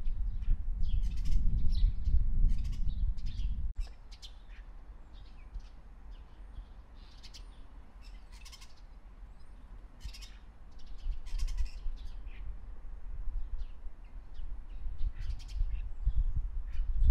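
Birds calling and chirping, many short high calls scattered throughout, over a low outdoor rumble that drops away suddenly about four seconds in and builds again in the second half.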